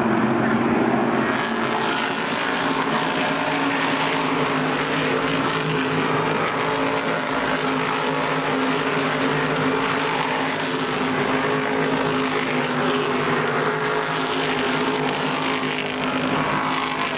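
A pack of Whelen Modified Tour race cars' V8 engines running at speed together, a loud, steady, dense engine sound.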